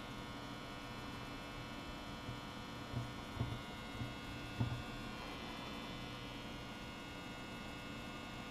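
Steady electrical mains hum with a stack of even tones, and a few faint soft knocks between about three and five seconds in.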